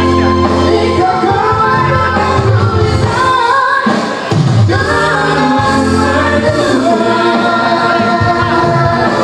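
A bride and groom singing together into microphones through a PA over electronic keyboard accompaniment, the bride's voice high and piercing.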